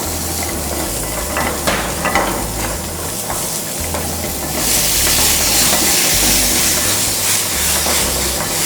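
Chopped vegetables frying in hot oil in a pan, a steady sizzle that grows louder about halfway through, with a few light clicks in the first few seconds.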